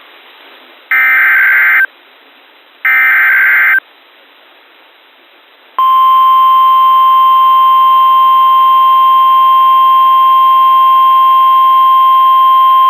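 Emergency Alert System SAME header data bursts, two one-second buzzy digital screeches about a second apart, followed about two seconds later by the steady 1050 Hz NOAA Weather Radio warning alarm tone that holds on. Together they signal that a new warning is about to be broadcast.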